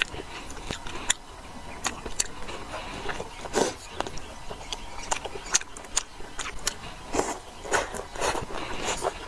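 Close-miked eating sounds: chewing and mouth smacking, with many irregular sharp clicks and short crunches.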